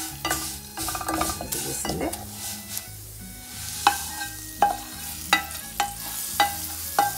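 A spatula stirring and scraping roasted vermicelli and sago pearls in a stainless steel pan, then a series of sharp taps with a metallic ring, a little under a second apart, as the pan is scraped out into a glass bowl.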